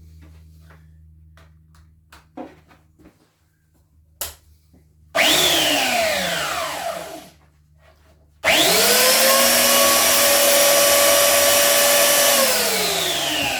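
Jellas 750-watt belt sander, clamped to the bench as a stationary sander, started and switched straight off, then started again and run steadily for about four seconds before being switched off. Each time its motor whine falls away as it winds down. A few light knocks come before the first start.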